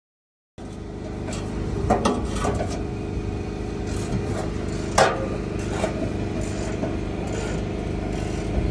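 Low, steady running of a heavy diesel truck engine at idle, cutting in abruptly about half a second in. A few sharp clicks or knocks stand out about two seconds and five seconds in.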